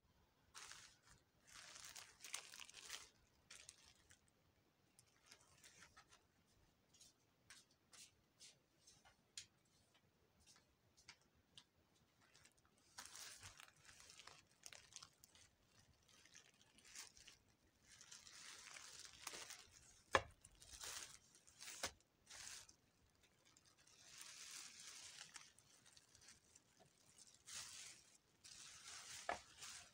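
Plastic courier pouch being torn open and a thin plastic bag inside crinkled by hand, in several rustling spells with small clicks between them.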